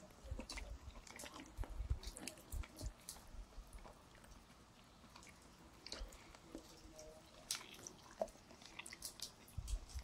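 A person chewing a bite of cooked chicken breast, with soft, irregular mouth clicks and crunches, mostly in the first three seconds and again near the end.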